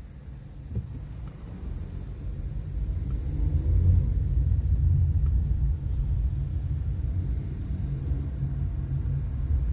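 Low rumble of a car's engine and road noise heard from inside the cabin as the car pulls away in traffic, growing louder about three seconds in and then holding steady.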